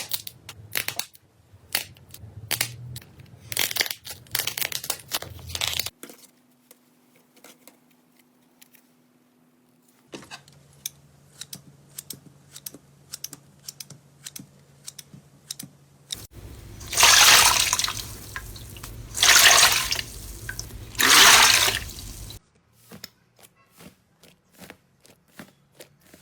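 Slime being squeezed, stretched and poked: many sticky clicks and pops, with three loud squelching swells in the second half.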